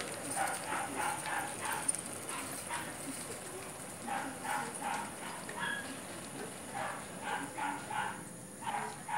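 A dog barking in quick runs of short, yappy barks, about four a second, with pauses between the runs.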